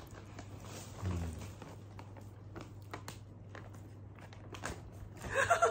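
Quiet crunching of wavy-cut potato chips being chewed, with scattered crackles as the foil snack bag is handled, over a steady low hum. A short burst of voice comes near the end and is the loudest sound.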